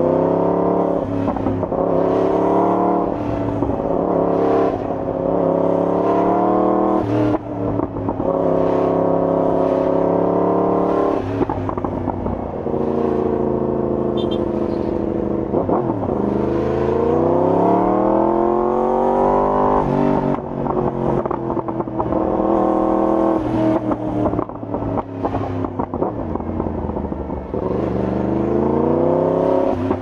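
Yamaha YZF-R1 inline-four engine through an Akrapovic full exhaust system, ridden hard. The revs climb and fall several times as the bike accelerates, shifts and backs off, with one long climb about halfway through.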